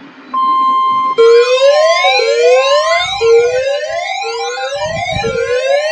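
Emergency Alert System test on NOAA Weather Radio: the steady 1050 Hz weather-radio alert tone starts about a third of a second in. From about a second in, several overlapping siren-like wails join it, each rising in pitch over about a second and repeating.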